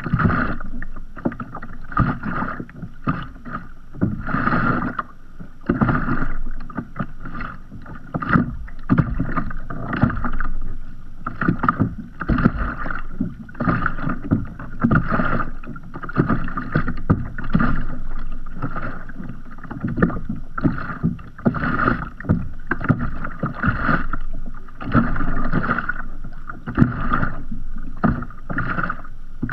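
Small waves lapping against the hull of a floating kayak, heard close up from the bow: a constant run of irregular soft slaps and splashes, a few each second.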